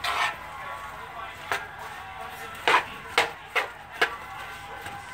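A spatula stirring fried rice in a nonstick skillet, knocking and scraping against the pan about six times at an uneven pace.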